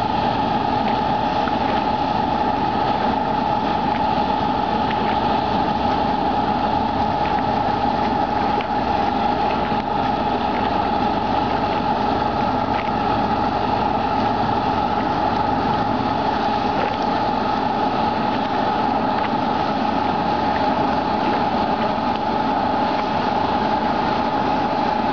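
Boat engine running steadily under load as it pushes a floating ferry raft through the water, a continuous drone with a steady high whine.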